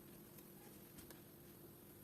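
Near silence: faint room tone with a steady low hum and a few faint ticks.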